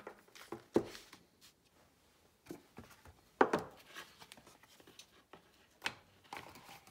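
Handling noise on a wooden tabletop: a few separate knocks and soft rubbing as a smartphone and its charging cable are set down, the loudest knock about three and a half seconds in.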